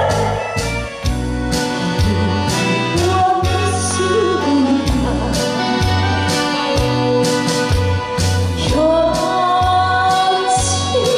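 A woman singing into a microphone over an amplified backing track with a steady beat and bass, holding long wavering notes.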